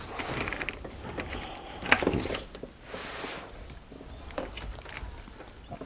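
Scattered clicks, scrapes and rustles of hands working a wire along the underside of a car, with one sharp knock about two seconds in.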